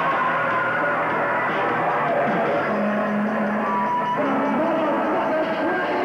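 Live rock band playing, with guitar and saxophone, heard muffled as if recorded on an old camcorder.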